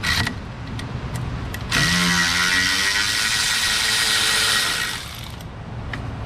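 A power tool, started about a second and a half in, spins up and runs for about three seconds while backing out the bolt that holds a bracket to a Jeep Wrangler's control arm. A few light metal clicks come before it.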